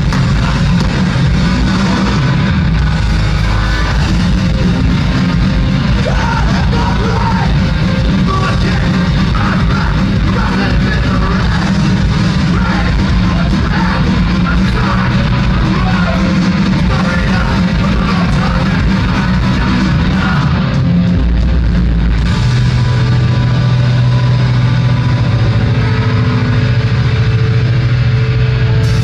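Hardcore punk band playing loudly live, with distorted electric guitars and drums. About two-thirds of the way in the music breaks briefly, then comes back with a held low note.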